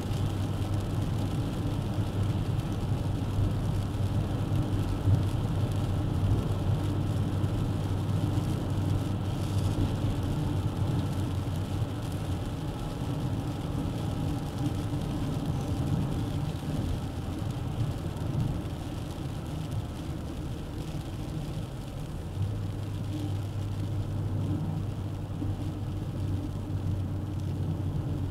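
Dacia Duster 1.3 TCe 4x4's turbocharged four-cylinder engine and tyres running steadily on the road, a low engine hum over road noise. The hum eases about halfway through and comes back strongly a few seconds before the end.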